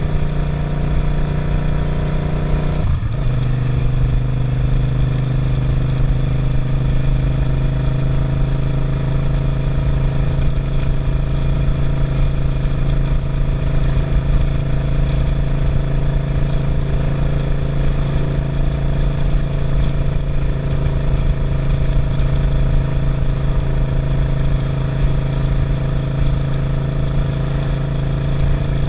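Suzuki SV650's V-twin engine running under way on a ride. About three seconds in, the engine note drops with a gear change, then holds steady at cruising speed.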